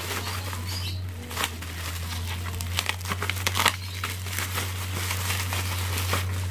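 Plastic bubble wrap crinkling and rustling as it is handled, with scattered sharp crackles. A steady low hum runs underneath.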